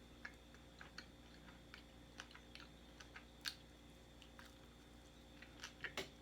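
Close-up chewing of a bite of spicy chicken sandwich and bun dipped in sauce: faint, scattered wet mouth clicks, with a few louder ones near the end.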